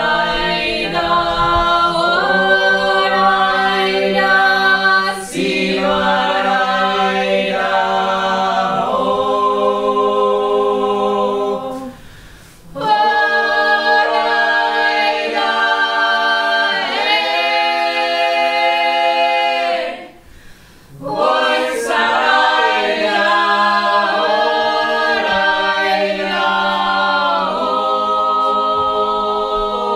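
A small group of voices singing a Georgian polyphonic song unaccompanied, in several parts over a held low drone. The singing breaks off briefly twice, about twelve and twenty seconds in, then resumes.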